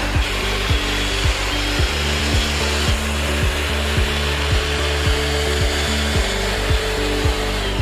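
Cordless Shark VacMop vacuum mop running steadily with a motor rush as its microfiber pad scrubs a hard floor, over background music with a steady thumping beat.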